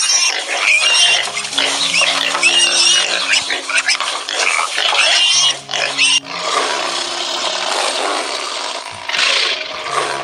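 Piglets squealing and grunting in short, high calls, over background music with held low notes.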